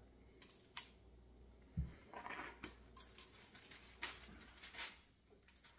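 Scattered clicks and light knocks of kitchen handling, with a dull thump about two seconds in followed by a short rustle.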